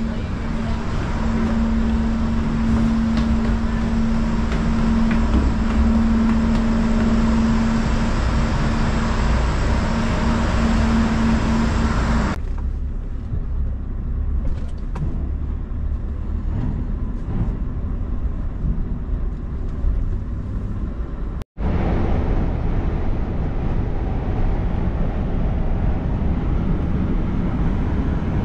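A steady machinery drone with a low hum runs inside a car ferry's passenger deck. About twelve seconds in, the sound cuts to a duller rumble from the cab of a Scania V8 lorry running slowly down the ferry ramp. About two-thirds of the way through, it cuts to the same cab at road speed, with engine and tyre noise.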